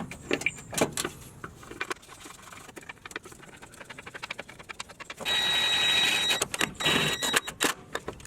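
Tool work on engine-mount bolts: a run of rapid ratchet-like clicks, then a cordless power tool runs with a steady whine for about a second and a half from about five seconds in, followed by more clicking.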